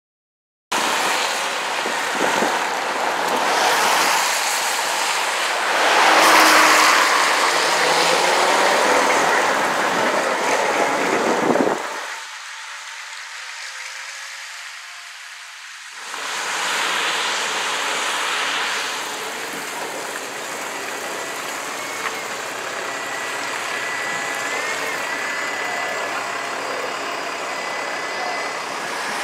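Buses driving past on a wet road, their engines running and their tyres hissing on the wet tarmac. The sound starts abruptly about a second in and dips for a few seconds around the middle.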